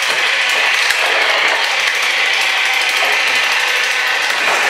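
Little Tikes STEM jr. Builder Bot toy robot running: its battery-powered motor and plastic gears make a steady, rapid ratcheting whir as the robot drives along.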